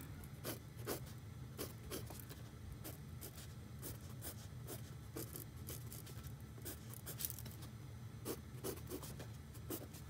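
A pencil drawing on paper in many short, irregular strokes, loosely tracing over the lines of a sketch.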